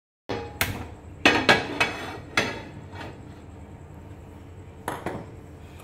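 Flat griddle pan (tawa) being set down and shifted on a gas stove's metal pan support: a run of sharp metal clanks in the first two and a half seconds, then two more near the end.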